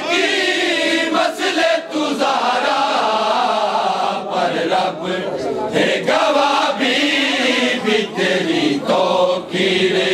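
A group of men chanting a Punjabi noha, a Shia mourning lament, together in unison. The massed voices waver in pitch and break off in short pauses between lines.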